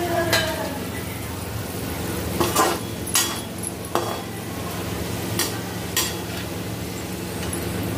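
Potato pieces sizzling steadily as they shallow-fry in a steel kadhai, while a perforated steel slotted spoon stirs them, scraping and knocking against the pan several times.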